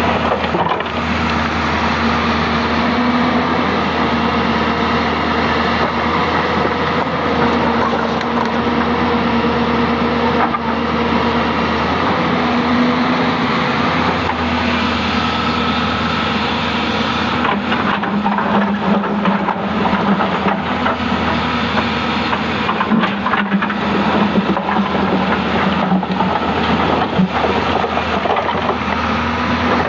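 A Hyundai 220-9S crawler excavator's diesel engine running steadily under load as the arm and bucket work rocks, with occasional knocks of stone in the second half.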